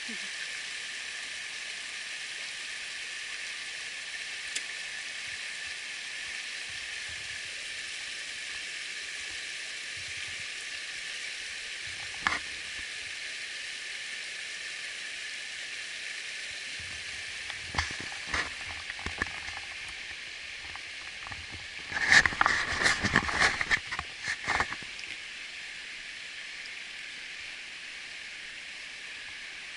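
Steady rushing hiss of a shallow creek flowing over rocks. A few single knocks come around the middle, then a louder run of scuffs and knocks lasting about three seconds a little past two-thirds of the way through.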